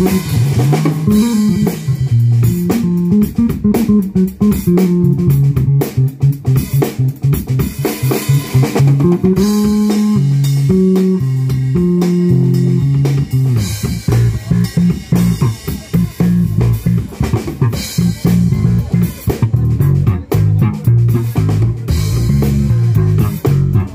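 Fender Player Series Precision Bass played over a drum backing: a low bass line of quick repeated notes, with a few longer held notes about halfway through.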